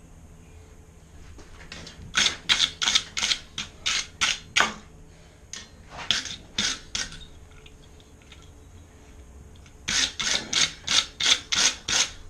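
Wire brush scrubbing a freshly forged square-bar steel J hook in quick back-and-forth strokes, about three or four a second, in three runs with short pauses between: the hook being cleaned up before its oil finish.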